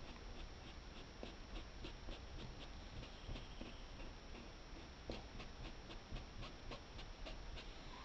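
Paintbrush loaded with sepia fabric paint making short strokes on cloth: faint, quick scratchy ticks about three a second, over a low steady hum.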